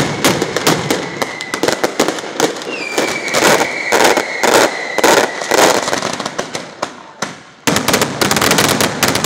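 A Valencian traca, a chain of firecrackers, going off in a rapid, dense rattle of bangs. A high steady whistle sounds through the first half. The bangs thin out just before the end and then start again abruptly with a fresh rapid burst.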